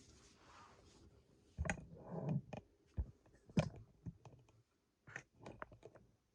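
Irregular sharp clicks and light taps, about a dozen, scattered unevenly, with a short rustle about two seconds in.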